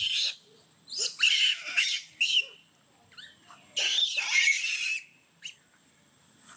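Long-tailed macaque screaming, shrill and harsh, in bouts: a short scream at the start, a run of screams from about one to two and a half seconds in, and one longer scream about four seconds in that lasts about a second.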